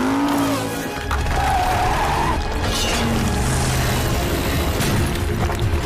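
Animated action-show soundtrack: dramatic background music mixed with a vehicle engine sound effect and a constant low rumble.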